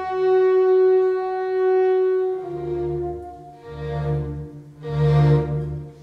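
Orchestra playing a slow passage. A long held note in the horns and winds ends about two seconds in, then three swelling chords follow, with heavy low strings beneath.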